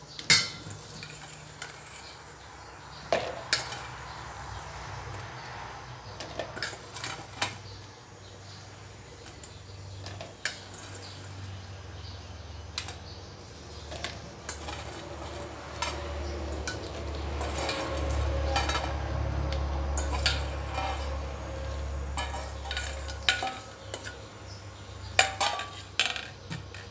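A metal spoon clinks and scrapes against a stainless steel bowl and a plastic tub as crispy fried chicken skin is spooned across. The clinks and knocks come irregularly, and a low hum swells through the middle, then fades.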